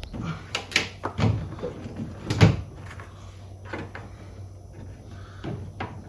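A series of irregular knocks and clicks, plastic and carbon trim being pressed and tapped onto its clips, the loudest about two and a half seconds in.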